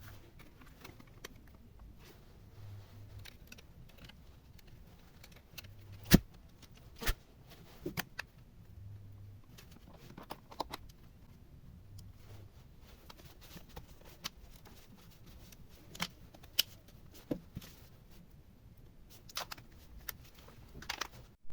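Scattered light clicks and taps of small tools and parts being handled on a repair bench, with a sharp knock about six seconds in and a few more knocks later.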